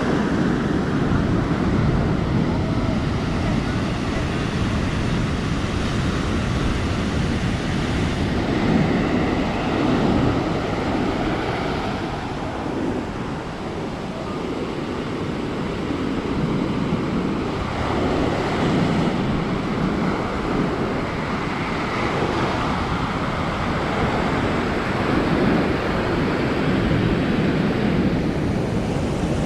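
Sea waves breaking and washing up the beach, swelling and easing every few seconds, with wind buffeting the microphone.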